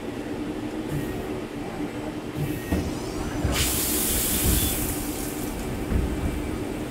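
CNC lathe running with a steady hum. About halfway in, cutting fluid starts spraying inside the enclosure with a loud hiss, strongest for about a second and a half, then continuing more quietly.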